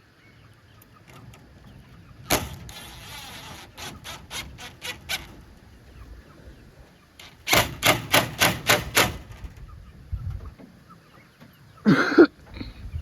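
Two runs of rapid sharp knocks, about four or five a second, with a single knock and a scrape before the first run. A chicken calls briefly near the end.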